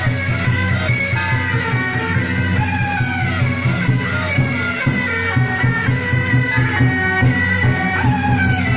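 Procession drum troupe's band music: a melody line over a steady beat of drum and cymbal-like strokes, playing without pause.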